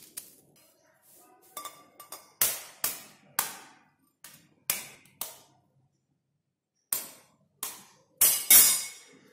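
A metal spoon and knife tapping an eggshell, about a dozen sharp, irregular cracking taps as the shell breaks, the loudest near the end.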